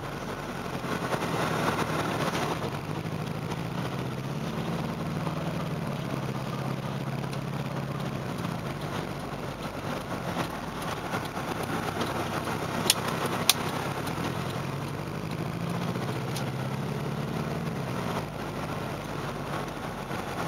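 Saturn SW2's 1.9-litre twin-cam four-cylinder engine running with a misfire, its pitch rising and falling a few times as it drives. Two sharp clicks come about halfway through.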